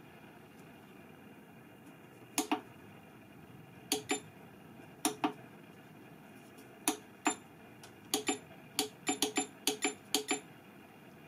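Front-panel push buttons of a Sunkko 787A+ spot welder being pressed to step up the weld current: short sharp clicks, a few spaced pairs at first, then a quicker run of about a dozen in the second half.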